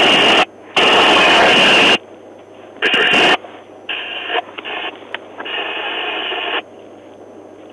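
Police cruiser's two-way radio: three loud bursts of static in the first three and a half seconds, then nearly three seconds of muffled, choppy radio transmission that cuts off suddenly.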